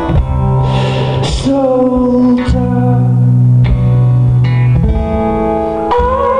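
Live band music: plucked guitar over held bass notes that change every second or two.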